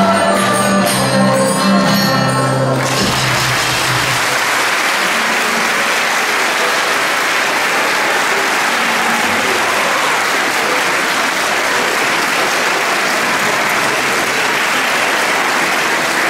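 A recorder ensemble with guitar plays its last notes, breaking off about three seconds in, then the audience applauds steadily.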